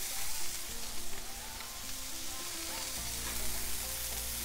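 Smash burger patties sizzling on a hot flat-top griddle under flour tortillas, a steady frying hiss. Background music plays along, with a bass line coming in about three seconds in.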